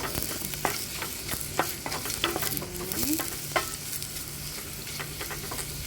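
Chopped onion, ginger and garlic sizzling in hot oil in a pan, with a cooking utensil clicking and scraping against the pan at irregular moments as they are stirred.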